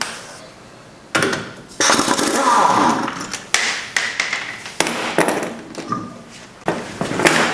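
A stuck car wheel being worked loose and pulled off its front hub: a series of sharp knocks and metal clanks, with a longer scraping rattle about two seconds in.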